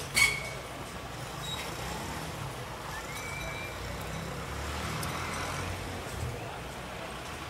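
Street traffic: a vehicle engine's steady low rumble, with one sharp loud click just after the start and a short rising chirp about three seconds in.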